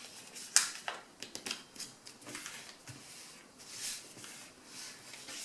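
A sheet of paper being folded and creased by hand: a string of short, crisp paper crackles and rustles.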